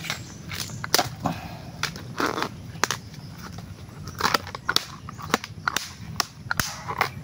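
Machete blade chopping and slicing the tough husk sheaths off a large bamboo shoot: a string of sharp, irregular chops and crunches.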